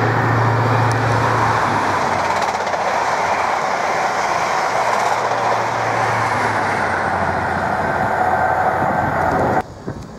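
Class 43 HST power car and Mark 3 coaches passing at speed: a loud rushing of wheels and air under a low engine drone. The sound cuts off suddenly near the end.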